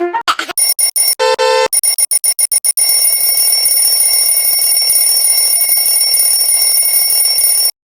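Alarm-style ringing sound effect: a rapid stutter of short pulses and a brief tone, then a continuous high ringing that cuts off suddenly near the end.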